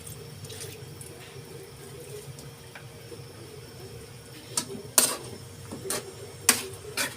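Water being poured little by little into a pot of sautéed chicken, a steady splashing hiss. Over the last couple of seconds a handful of sharp knocks of a utensil against the pot come through.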